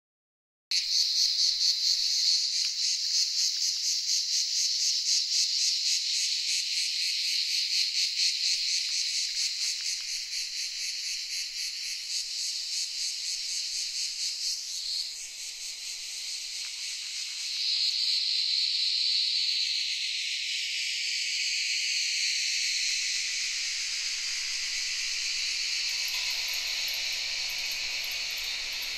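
Ambient soundscape opening with a dense, high, insect-like chirring that pulses rapidly and evenly. It starts abruptly about a second in, and low steady tones come in beneath it in the last few seconds.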